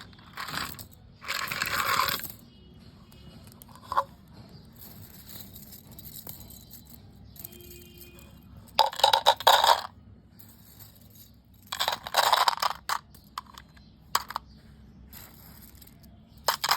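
Plastic hair claw clips and their packaging being handled during an unboxing: several bursts of rustling and clicking, each about a second long, with quieter gaps between.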